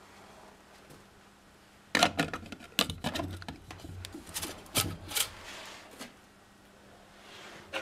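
Sheet-metal hatch cover on a homemade brass-case tumbler drum being slid shut and a coil-spring band hooked over it. A quick run of metallic clicks and clatter starts about two seconds in and lasts until about five seconds in, followed by quieter handling.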